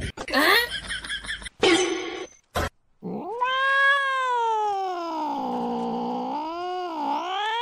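A cat's long, drawn-out yowl starts about three seconds in. Its pitch sinks slowly, then dips and rises twice near the end. It is a caterwaul from one of two domestic cats squared off face to face, a threat call in a standoff. Before it come a few short squeaky sounds and a sharp click.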